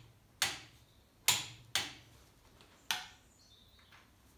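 Click-type torque wrench on the cylinder head nuts of a Ferguson TED20 engine: four sharp metallic clicks with a short ring, irregularly spaced, as the wrench reaches its set 48 newton metres, half the final torque.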